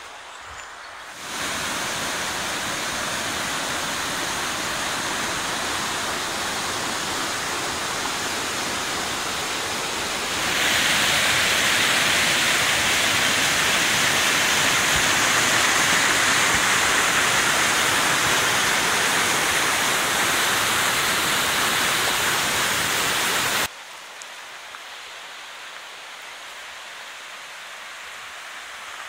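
Alpine mountain stream rushing over rocks, a steady roar of water. It jumps louder and hissier about a third of the way in, with white water close by, then drops suddenly to a quieter, more distant rush near the end.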